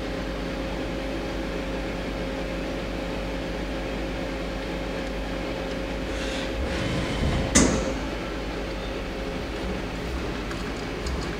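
Hyundai-Wia L400LMC CNC turning center humming steadily, with a faint steady whine. About six seconds in, a whir builds as the tool turret moves and ends in one sharp clunk.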